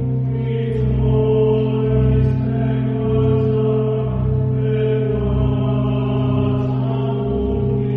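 Sacred choral chant: voices holding long, slow notes over a steady low drone.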